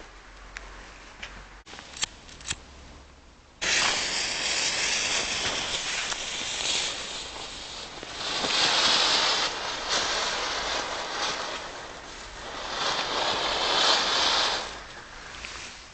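A few sharp crackles, then about four seconds in a small youth-class (category F1) firework catches and hisses loudly as it sprays sparks. The hiss swells twice and dies down near the end.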